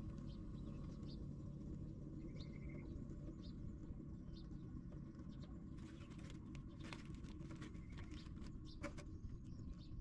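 Faint, short, high cheeps from myna nestlings about once a second over a steady low rumble, with a run of faint clicks and crackles from about six seconds in.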